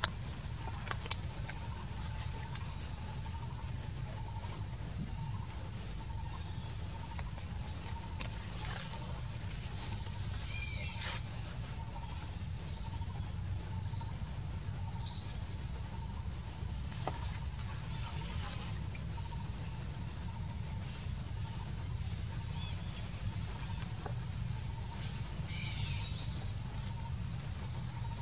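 Steady high-pitched insect drone in forest, with a few brief high chirping calls scattered through it over a low background rumble.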